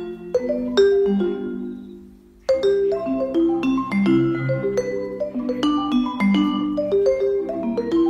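Background music of struck mallet-percussion notes in a quick melodic run, fading away about two seconds in and then starting up again.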